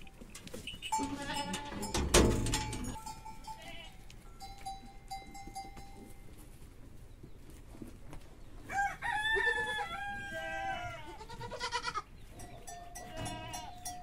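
Goats bleating several times. The longest and loudest is a wavering bleat about nine seconds in.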